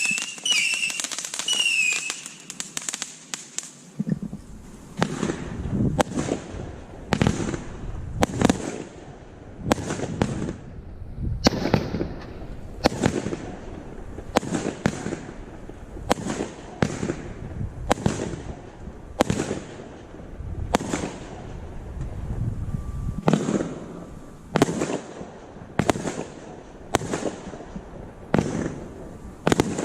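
Guy Fawkes 'Ammo Crate' 1.3G firework cake firing. Wavering whistles fade out in the first two seconds, then a steady run of sharp shots and bursts follows, a little more than one a second.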